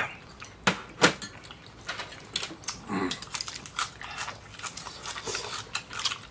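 People eating: chewing and smacking with their mouths, broken by sharp clicks and crunches, the two loudest about a second in.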